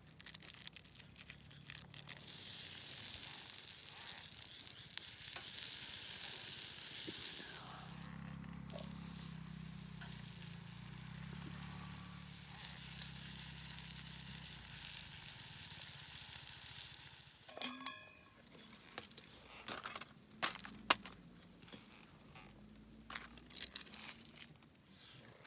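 Food sizzling in a hot frying pan, loudest over the first several seconds and then settling to a quieter, steady frying hiss. Near the end the sizzle drops away and a few sharp clicks and knocks follow.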